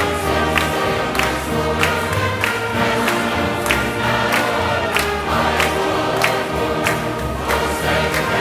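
Large church choir singing a gospel song with instrumental accompaniment, over a steady beat of roughly one and a half strokes a second.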